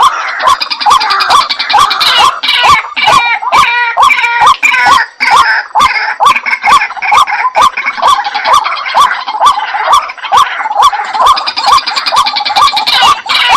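Waterhen calling loudly: a harsh, hooked note repeated over and over, about two to three a second, with many sharp clicks mixed in.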